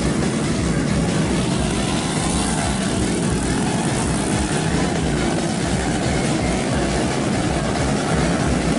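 Cubcross underbone motorcycles racing on a dirt track, their small engines revving at a distance over a constant low rumble.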